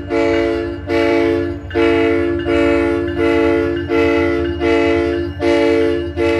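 SunRail commuter train's multi-chime air horn sounding a rapid string of short blasts, each one chord under a second long and spaced about three-quarters of a second apart, as in a horn show for railfans. A low steady rumble runs underneath.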